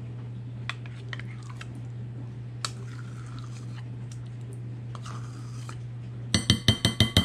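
Faint scrapes and clicks of a utensil working in a bowl, then near the end a quick run of loud, ringing metallic clinks, a metal utensil tapped rapidly against a dish, over a steady low hum.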